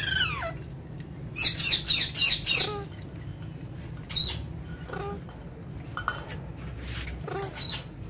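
Alexandrine parakeets squawking: a harsh call falling in pitch at the start, a quick run of loud screeches between about one and a half and three seconds in, then short single calls every second or so, over a steady low hum.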